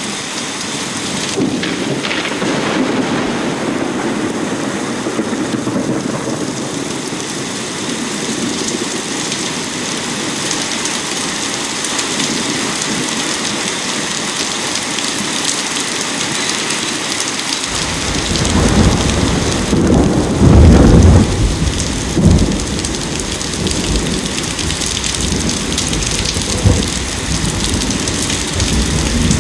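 Steady rain falling, with thunder rumbling in about two-thirds of the way through, loudest a few seconds after it starts, then rolling on more softly.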